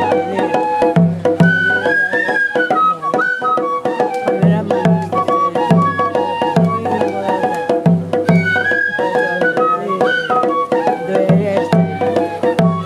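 Japanese festival ohayashi music: transverse flutes (fue) playing a lilting melody over regular beats of a taiko drum.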